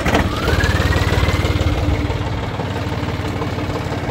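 An engine running close by: a whine rises in pitch over the first second and a half and then holds steady over an even, low firing rumble.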